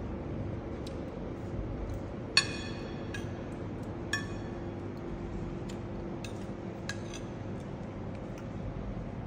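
Metal spoon clinking against a ceramic plate while eating: a few light clinks, the loudest and most ringing about two and a half seconds in and another at about four seconds, over a steady low hum of the room.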